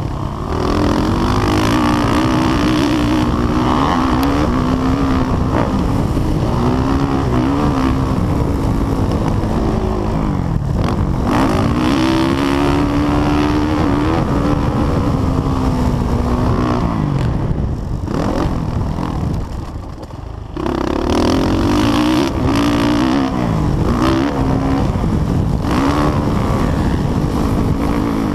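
Suzuki 450 motocross bike's four-stroke single-cylinder engine revving up and down under hard riding, its pitch climbing repeatedly and falling off the throttle, heard from the rider's helmet camera. About two-thirds of the way in it drops back and quietens briefly before pulling hard again.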